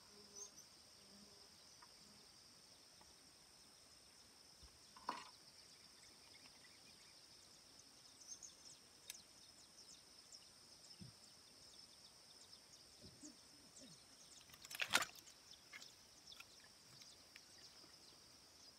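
Faint steady high-pitched drone of insects over near silence, broken by a couple of brief sharp knocks, the loudest about three-quarters of the way through.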